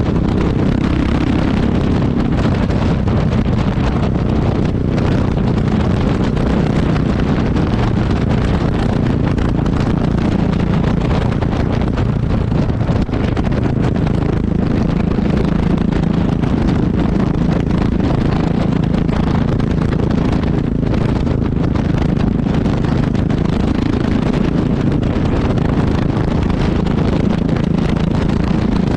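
Yamaha XT660X's single-cylinder engine exhaust running at a fairly steady note, picked up close to the exhaust, with wind rushing over the microphone.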